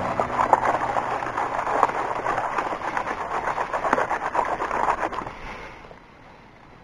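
Water sloshing in a plastic gold pan that is shaken hard under water in a tub, with a gritty crackle of sand swirling inside the pan. The sloshing dies down about five and a half seconds in.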